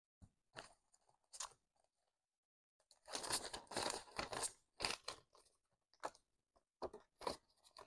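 Paper banknotes rustling and crinkling as a stack of bills is handled and fanned. There are a few scattered rustles at first, then a dense flurry of crisp rustling about three seconds in, and a few more short rustles near the end.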